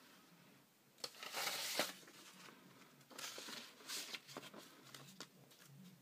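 Paper and cardboard rustling and scraping as they are handled and laid in a cardboard box, with a few light taps. A longer rustle comes about a second in and shorter ones around three and four seconds.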